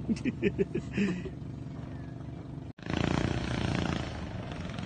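A man's voice briefly at the start, then after an abrupt cut a boat engine running steadily.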